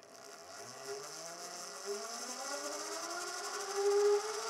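Servo-motor-driven high-speed spindle head on an Ursus milling machine speeding up as its speed knob is turned. It makes a whine of several tones that rises steadily in pitch and grows louder, swelling briefly near the end.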